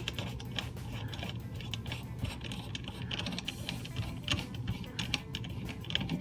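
Small-engine recoil starter being reassembled by hand: light, irregular clicks and ticks of the plastic pawls, washers and pawl cup shifting against each other as the centre bolt is worked into its thread.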